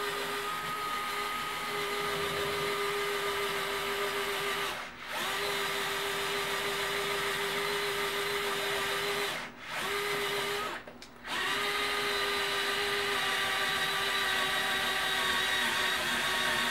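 DeWalt 8V gyroscopic screwdriver's motor running steadily under load as it slowly drives a self-tapping screw into thick steel strut channel, stopping briefly three times along the way.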